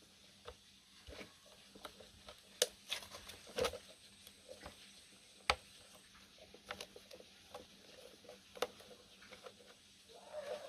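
Irregular light clicks and taps of small hard parts being handled, a few sharper knocks standing out.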